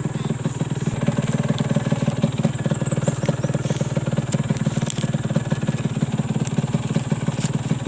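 Modenas Dinamik 120 motorcycle's single-cylinder engine running at a low, steady speed, a rapid even putter of exhaust pulses.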